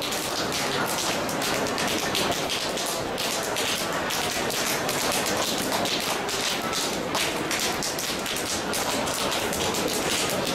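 Two people's open hands slapping the bare skin behind a man's knees in Paida slapping therapy: rapid, continuous, overlapping slaps on skin.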